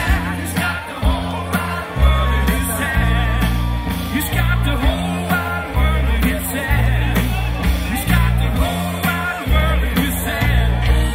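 Live band music played loud over PA speakers, with a heavy bass line and some singing.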